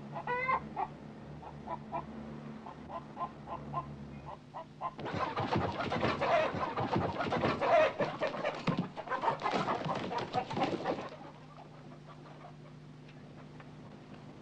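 Live chickens clucking in a shop's cage: scattered short clucks at first, then a louder, busier stretch of calls from about five seconds in until about eleven seconds, after which they fall quiet.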